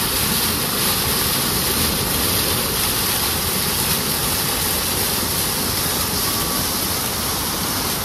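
Waterfall cascading over rocks into a pool: a loud, steady rush of falling water.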